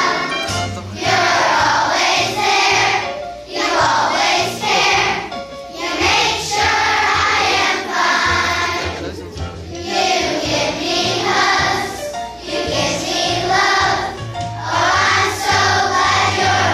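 A large choir of young schoolchildren singing a song in phrases, over an accompaniment that carries a low bass line.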